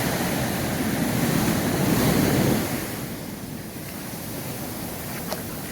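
Sea surf: a big wave breaking and washing up the beach, loud at first and then dying down about halfway through.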